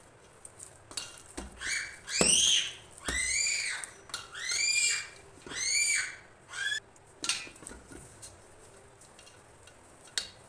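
About six high-pitched squeaky calls between about 1.5 and 7 seconds in, each rising and then falling in pitch. Light clinks and knocks of a steel bowl come from hands kneading dough in it.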